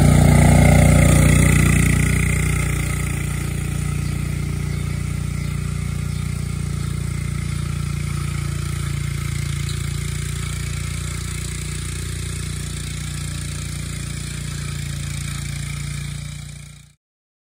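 Kawasaki Mule UTV engine running steadily under load as it tows a heavy disc harrow through tilled soil. It is loudest in the first couple of seconds, then settles, and cuts off suddenly near the end.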